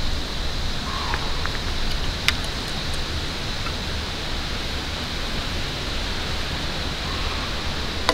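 Steady rushing noise with a faint, thin high tone held throughout, and one faint tick about two seconds in.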